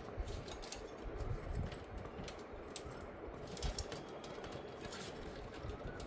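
Scattered faint clicks and low knocks of hands working a power supply cable connector loose from its socket inside a PC.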